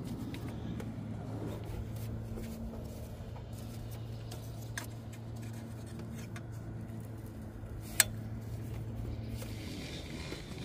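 Small clicks and clinks of a pick and gloved hands working at the plastic purge valve and its metal mounting clip, with one sharp click about eight seconds in. A steady low hum runs underneath and stops shortly before the end.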